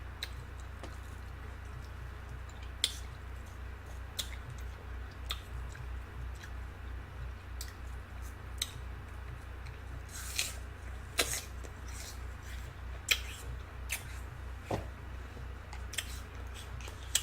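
A person chewing fresh fruit close to the microphone: scattered, irregular, short crisp mouth clicks and squishes, a few of them sharper, over a steady low hum.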